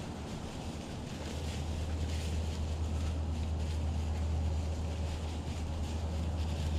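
Wind buffeting the microphone as a steady low rumble, with a faint rustling hiss over it, slowly growing louder.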